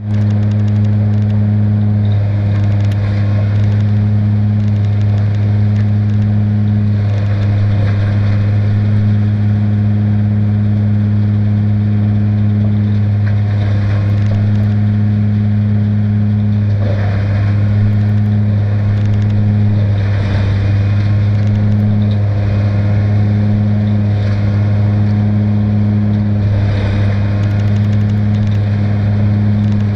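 John Deere tractor running a straw blower that shreds baled hay and blows it out a chute. It makes a loud, steady mechanical hum with a rushing noise on top, unchanging throughout.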